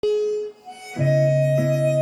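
Harmonica playing: a short held note, a brief gap, then a sustained chord from about a second in.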